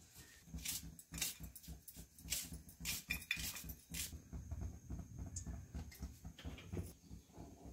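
Small clicks and scrapes of garlic cloves being peeled with a knife over a steel bowl, over a low, uneven handling rumble.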